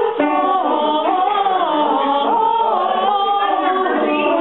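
A high school choir singing together, held notes moving from one pitch to the next.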